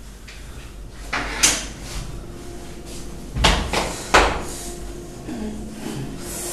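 Belt buckle clinking and clothing rustling as a man unfastens and pulls out his trouser belt. Sharp clicks come just over a second in and twice around the middle, over a faint steady hum.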